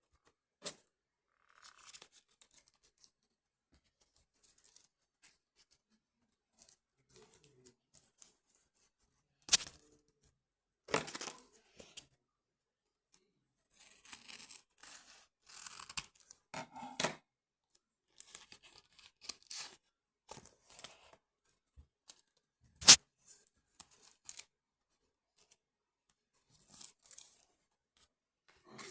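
Irregular bursts of scraping, rustling handling noise, like material being torn or cut, with a few sharp clicks, the loudest about twenty-three seconds in.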